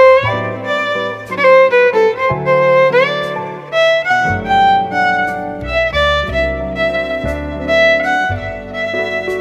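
Background music: a melody with sliding notes over a bass line that changes note every second or two.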